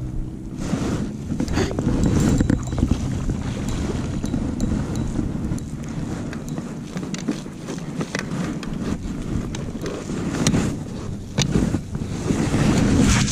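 Wind buffeting the microphone aboard a small inflatable boat, a steady low rumble, with many short knocks and rustles of fishing gear being handled.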